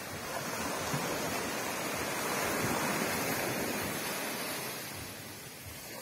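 Small waves washing up onto a sandy beach: one wash of surf swells up over the first couple of seconds and dies away again toward the end.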